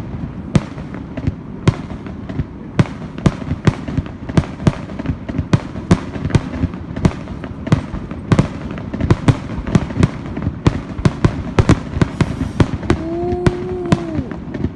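Fireworks display going off in a rapid, irregular barrage of sharp bangs and cracks, several a second, over a steady low rumble of more distant bursts.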